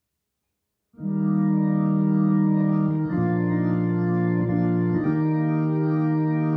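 Electronic organ playing slow, held hymn chords through its own cabinet speakers and spinning rotary baffle, starting suddenly about a second in; the chord changes twice.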